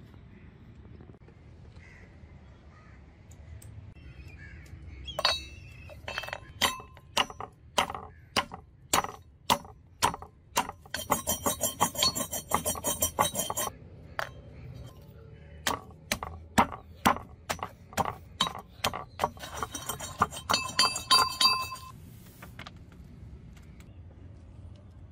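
Pieces of fired brick crushed to powder in a bowl with a metal pestle: sharp pounding strikes about two a second with a clinking ring, broken twice by a couple of seconds of fast, rapid pounding, near the middle and about three quarters in.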